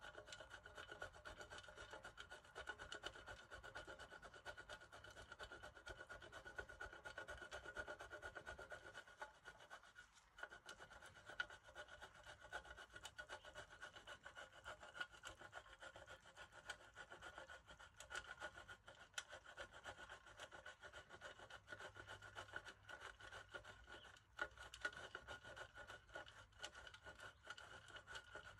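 Block of cheese being grated on a Fackelmann stainless-steel box grater: a continuous run of rapid rasping strokes, with a short lull about ten seconds in.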